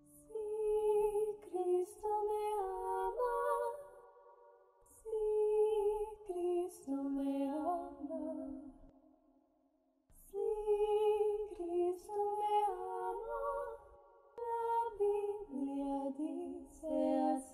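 A woman singing a slow, lullaby-like melody in four phrases of about four seconds each, with short breaks between them.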